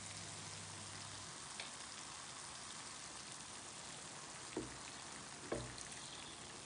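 Sliced onions gently sizzling in butter in a frying pan, a steady fine crackle. Eggs are slid in from a wooden bowl, with a faint click and then two soft thumps about four and a half and five and a half seconds in.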